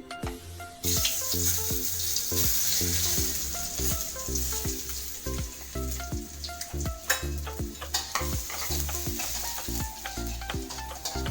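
Food sizzling as it fries in hot oil in a pan, the hiss starting suddenly about a second in and continuing, with background music playing throughout.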